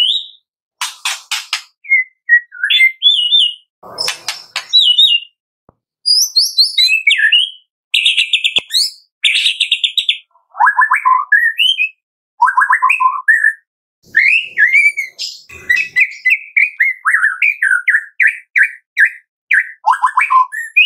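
White-rumped shama singing a varied song: whistled phrases that rise and fall, fast trills and a few harsh clicking rattles, separated by short pauses.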